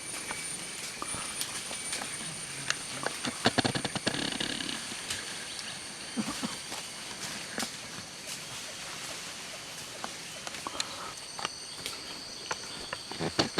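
Footsteps and rustling along a rural footpath, with scattered clicks and knocks, busiest a few seconds in, over a steady high-pitched drone of insects.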